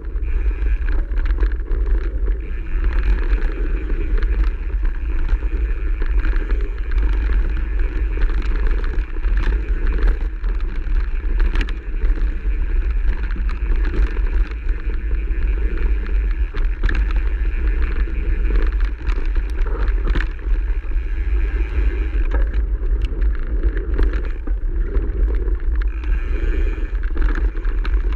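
Mountain bike ridden fast down a forest singletrack: a constant low rumble of wind buffeting and trail vibration, with tyres on dirt and gravel and frequent small clicks and rattles from the bike over bumps.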